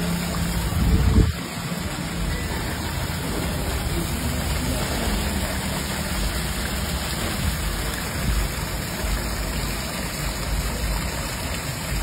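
Water pouring steadily from a pipe and splashing into a shallow tiled pool, a continuous rushing and splashing, briefly louder about a second in.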